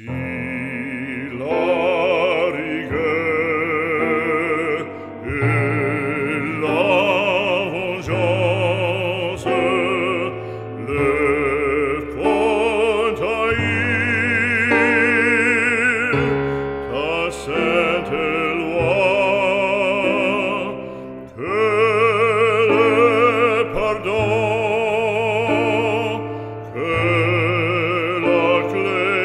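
Classical music: an operatic voice singing long phrases with strong vibrato over sustained accompaniment, pausing briefly between phrases.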